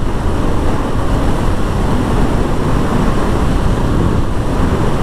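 Steady wind rush over a motorcycle rider's action-camera microphone while riding at speed, with engine and road noise underneath.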